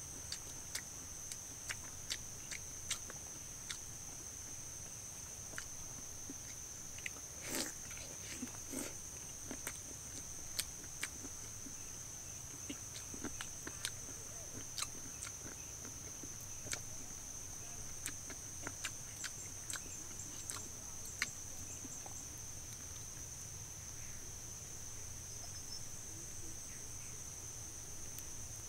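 A steady high-pitched insect drone from crickets or cicadas, with irregular sharp clicks and crunches of someone biting and chewing a crispy fried chicken drumstick.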